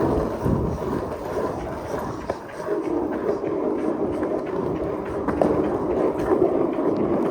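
Skateboard rolling along pavement: a steady rumble of the wheels with a few sharp clicks as they pass over cracks.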